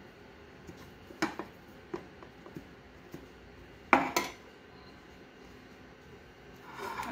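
Aluminium tube cake pan clinking against a ceramic plate while a cake is unmoulded from it: a few light clicks, then two sharper knocks close together about four seconds in.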